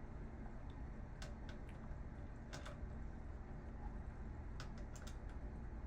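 Light scattered clicks and ticks of a screwdriver and screws against the monitor's casing and parts as a screw is worked out, some in quick pairs, over a steady low background hum.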